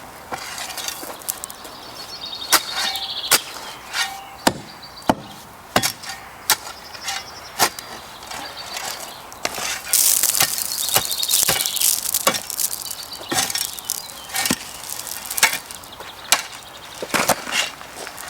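Hands and a hand tool working in a gravelly alpine bed, lifting plants: irregular sharp clicks and knocks of stones and grit, with a louder scraping stretch about ten seconds in.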